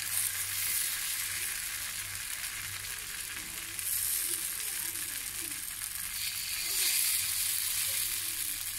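Banana and wheat-flour batter pancakes sizzling in oil on a nonstick pan: a steady frying hiss that swells louder a few times.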